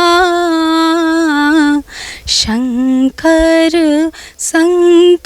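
A woman sings a Hindi Shiva bhajan solo and unaccompanied. She holds a long note, takes a quick breath about two seconds in, then goes on with the word "Shankar" in shorter ornamented notes.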